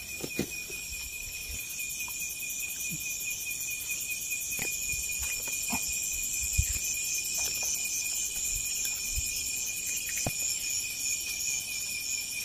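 Steady chorus of night insects, crickets trilling at an even high pitch, with a few faint clicks and rustles of a hand grabbing among dry leaves and grass.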